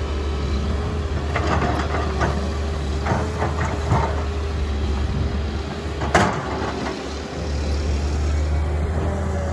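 SANY SY205C excavator's diesel engine running steadily with a steady whine, under scattered knocks and clanks. One sharp bang comes about six seconds in.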